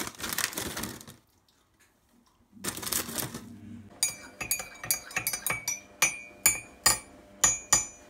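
Metal teaspoon stirring tea in a ceramic mug, clinking against the sides in a quick rhythm, about two or three strikes a second, through the second half. Near the start there is a short rustle as a cookie is picked out of a plastic tray.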